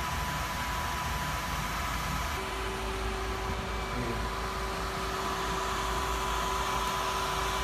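Cooling fan of a server power supply powering an ASIC bitcoin miner, just switched on and running with a steady noise and a faint high hum. A second, lower steady tone joins about two and a half seconds in.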